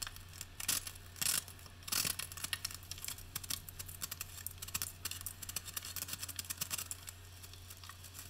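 Dense, quick clicks and scrapes of hand tools and materials being handled during tile-prep work, over a steady low hum.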